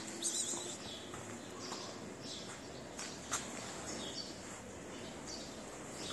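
Small birds chirping in the background, short high chirps coming every second or so. A single sharp click about three seconds in.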